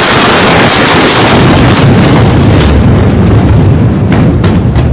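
The shockwave of the Beirut port explosion, the detonation of a stockpile of ammonium nitrate, striking a phone's microphone: a deafening, continuous rush of noise over a deep rumble that overloads the microphone. Sharp cracks break in from about four seconds in.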